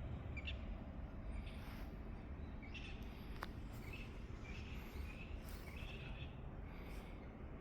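Outdoor ambience: birds chirping in short calls about once a second, over a steady low rumble.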